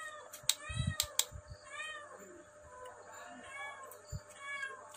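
A cat mewing repeatedly: short high calls that rise and fall in pitch, about one a second. A few sharp clicks come in the first second or so, with another at the end.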